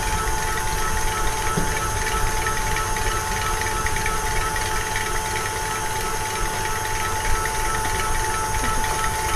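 Electric hand mixer running at a steady speed with a constant motor whine, beating softened cream cheese until smooth.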